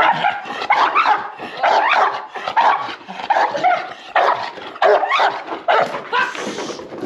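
Pit bull barking hard and fast, a little over two barks a second, some with a whining edge: the barking of a protection dog being agitated by a decoy with a stick.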